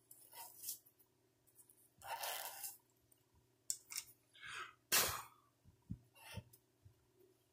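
Short, scattered rustles and scrapes from a hand clearing curly resin shavings off a pen blank on a stopped lathe.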